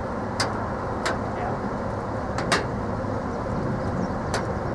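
Steady low rumble of thunderstorm weather, wind and distant thunder, with four short sharp ticks scattered through it.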